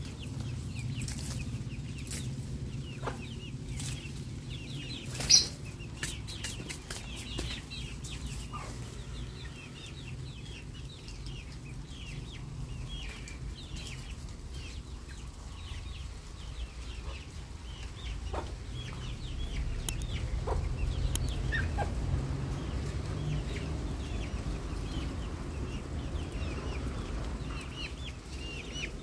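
Backyard chickens clucking and chicks peeping on and off as they scratch and peck for food, over a steady low rumble. A single sharp click about five seconds in is the loudest sound.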